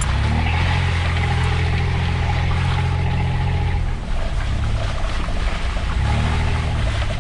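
Four-wheel-drive vehicle's engine running at steady revs on a muddy forest track, easing off about four seconds in and picking up again about six seconds in.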